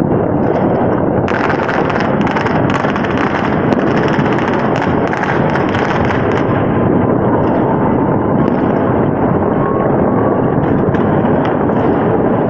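New Year's fireworks going off on all sides at once: a continuous din of bangs and rumble. A dense run of sharp cracks starts about a second in and thins to scattered pops about halfway through.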